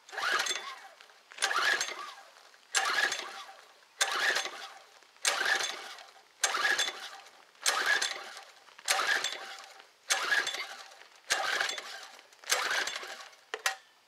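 Briggs & Stratton 725-series engine on a pressure washer being pull-started with the choke on: about a dozen pulls of the recoil starter, roughly one a second, each turning the engine over without it catching. It is a no-start that the owner puts down to a stopped-up carburetor.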